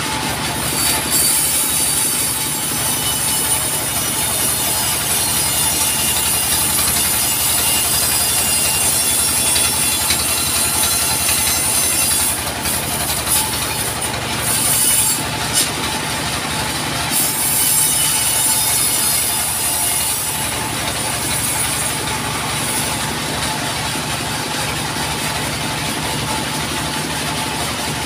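Engine-driven band sawmill running steadily while its blade rips lengthwise through a timber beam, a high hiss of the blade in the wood over the hum of the engine. The hiss breaks off briefly a few times around the middle as the wood is pushed through.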